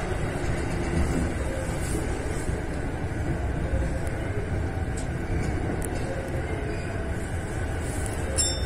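Electric commuter train running slowly into an underground terminal platform, heard from behind the driver's cab: a steady low rumble with a few faint ticks, and a brief high-pitched squeal near the end.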